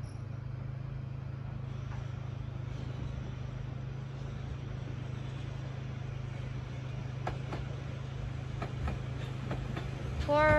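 London Underground train approaching: a steady low hum and rumble that swells a little toward the end, where the wheels start to squeal on the rails.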